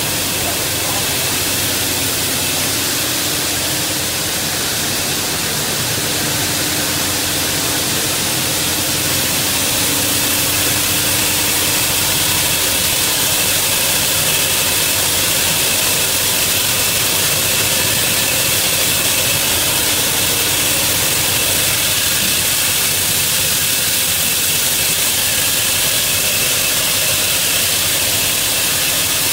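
Rotor-and-screen machine of a rigid PE/PP plastic washing line running steadily, its rotor flinging shredded plastic flakes against a perforated steel screen. A loud, even, hissing machine noise with a faint hum under it.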